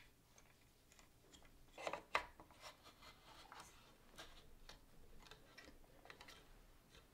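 Faint plastic clicks and rubbing as a 3D printer's spool holder is handled and slid down onto its mounting bracket, with a louder cluster of clicks about two seconds in.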